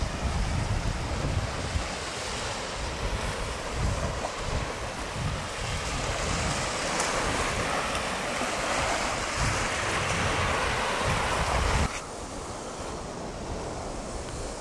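Wind buffeting the microphone over the rush of surf on a sandy shore, the gusty rumble swelling through the middle and dropping off sharply about twelve seconds in.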